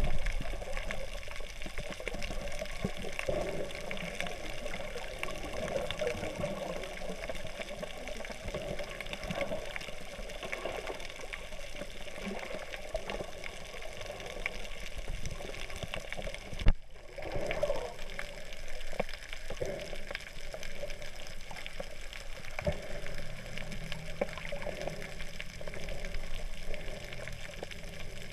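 Muffled underwater water noise from a snorkeler's camera in the sea, an even rushing wash with no voices. A single sharp knock comes about seventeen seconds in.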